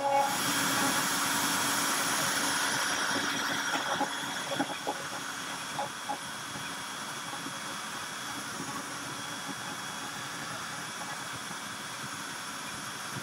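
Makita RT0701C compact router on a CNC machine, spinning and carving a design into a cedar board: a steady whine and hiss. It is loudest for the first few seconds, then settles a little quieter, with a few small clicks a few seconds in.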